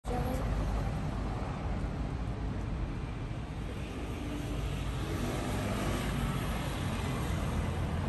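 Street ambience: a steady hum of road traffic.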